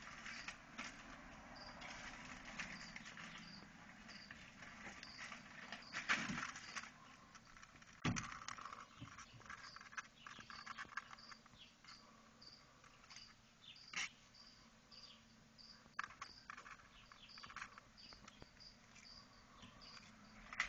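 A cricket chirping steadily, short high chirps about once a second, typical of a feeder cricket loose in a chameleon's terrarium. Rustling handling noise and a few sharp clicks come and go over it.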